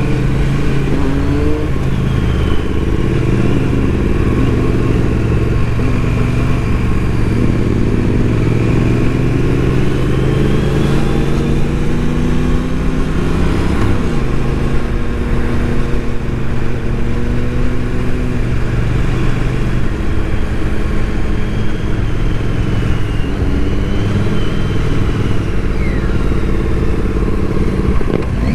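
Motorcycle engine running on the move, its pitch rising and falling as it accelerates and eases off through the gears, with a break in the tone about halfway through.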